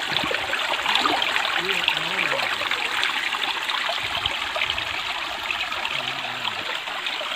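Shallow stream water running and trickling over rocks, a steady rushing hiss.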